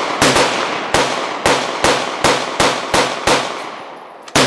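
Rapid string of about ten gunshots from an AR pistol fitted with a binary trigger, which fires once on the pull and once on the release. The shots come about two to three a second with ringing after each, stop a little past three seconds in, and one more shot cracks near the end.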